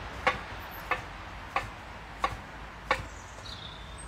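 Knife slicing through rested roast pork and knocking down onto a wooden chopping board: five sharp taps, about one every two-thirds of a second.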